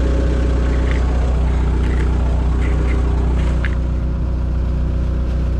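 Excavator's diesel engine idling steadily, warming up, with a deep, even hum and a few faint short clicks over it.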